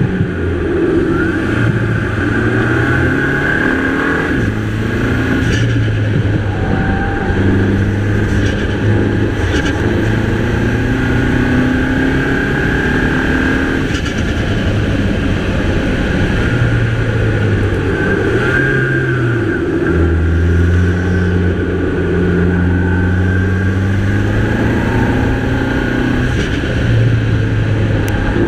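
A Mini Cooper's 2.0-litre turbocharged four-cylinder engine pulling through a run of bends, revving up, shifting and easing off again and again. A faint turbo whistle rises and falls with the throttle.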